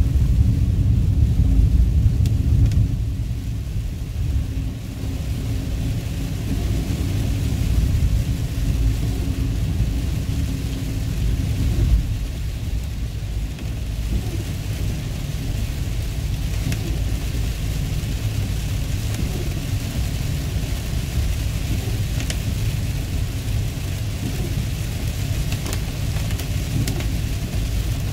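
Rain falling on a moving car's roof and windshield, heard from inside the cabin, with scattered drops ticking. Under it runs the steady low rumble of the car driving on a wet road.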